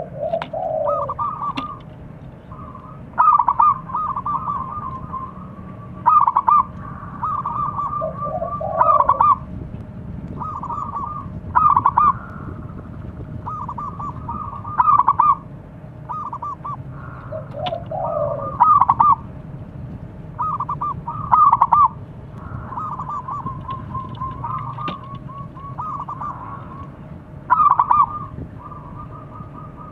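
Zebra dove (perkutut) singing its rapid staccato coo: phrase after phrase of quick stuttering notes, with a louder phrase every few seconds.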